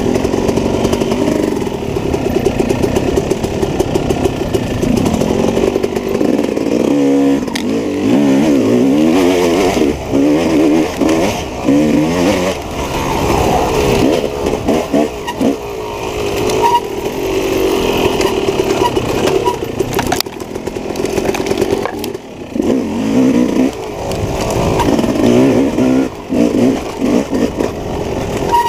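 Dirt bike engine ridden on an off-road trail, its revs rising and falling constantly as the throttle is worked, with a few sharp knocks and clatter along the way.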